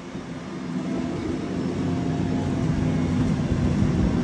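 Merlo P27.6 telehandler's diesel engine running steadily, growing louder as the machine drives closer.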